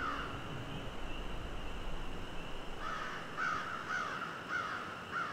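A bird calling outdoors: one short call at the start, then a quick run of about six short calls starting about three seconds in.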